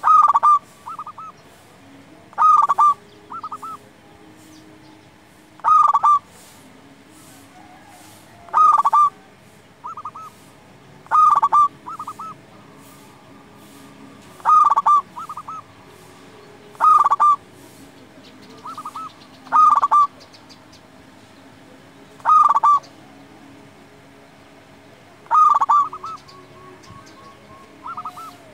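Zebra dove (perkutut) cooing its repeated song: a loud phrase of a few quick notes about every two to three seconds, ten times, with softer short notes in between.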